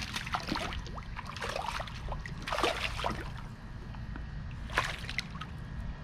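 Water sloshing and splashing in four short bursts, over a steady low rumble.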